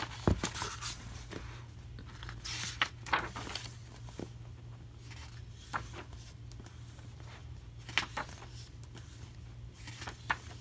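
Paper pages of a photo book being turned and flipped by hand: rustling swishes with a few sharp taps and slaps of paper, over a low steady hum.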